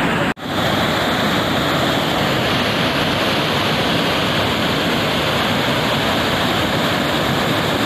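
Floodwater rushing in a steady, loud roar as a muddy torrent pours down a hillside and over rocks. The roar breaks off for an instant just after the start and then carries on unchanged.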